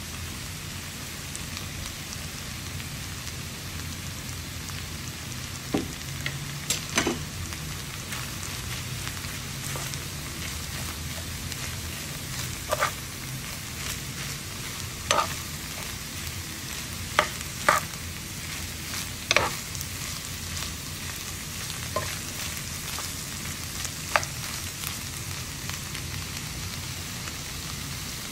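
Bamboo shoot strips and pork sizzling steadily in a frying pan as they are stir-fried, with a few sharp clinks of a metal spoon against the pan as the food is turned.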